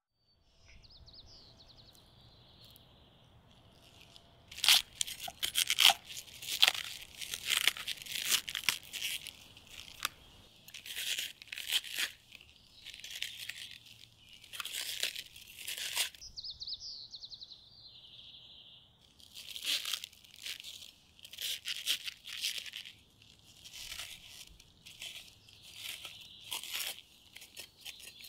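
Kitchen knife cutting into a raw whole cabbage to hollow out its core: runs of crisp crunching cuts through the dense leaves. The cutting breaks off for a few seconds partway through, leaving faint bird chirping.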